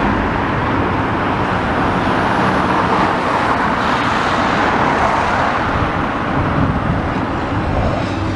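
Road traffic: cars driving past close by, a steady traffic noise that swells as a car passes about four seconds in.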